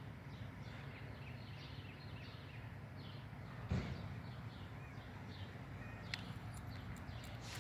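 Small birds chirping over and over in short falling chirps, above a steady low rumble. A single thump about four seconds in is the loudest moment.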